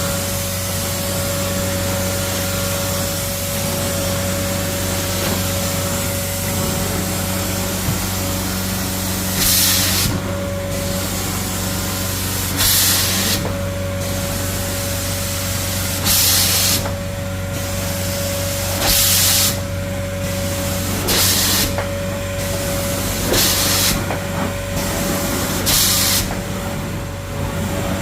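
Carpet-cleaning extraction machine running steadily with a low hum and a whine. From about a third of the way in, short hissing bursts of spray and suction come every two to three seconds as the cleaning wand is worked over the carpet.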